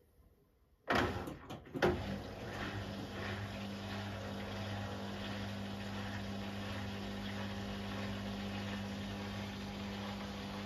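Beko washing machine's drain pump switching on about a second in, with a couple of clicks, then running with a steady hum over rushing water.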